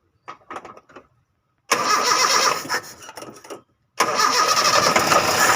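Toyota Kijang Super engine started after an ignition coil replacement: about two seconds of uneven cranking and firing, then, after a brief break, the engine running steadily.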